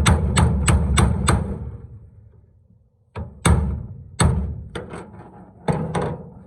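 Hammer blows on a punch against the steel tailgate hinge of a 1984–1988 Toyota pickup, crimping the flange of a new brass sleeve. A quick run of about four sharp metallic strikes a second comes first, then about seven separate blows spaced out through the rest.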